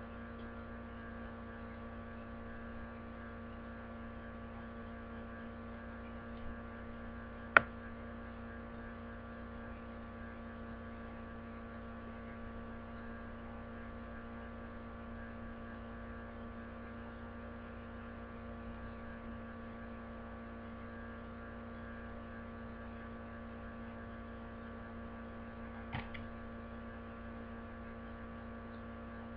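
Steady electrical mains hum with several fainter steady tones above it. A single sharp, loud click comes about a quarter of the way in, and a softer one comes near the end.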